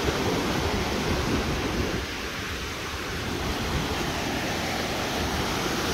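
Ocean surf breaking and washing up a sand beach in a steady rush, with wind rumbling on the microphone.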